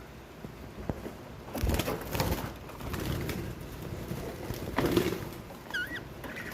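Birds at a birdhouse: a few scuffling, knocking rustles, then a short run of high chirping notes near the end.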